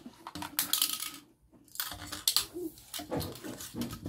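Plastic toy toothbrush scrubbing over the plastic teeth of a toy dentist jaw model, a run of rapid scratchy clicks in two bouts with a short pause between them.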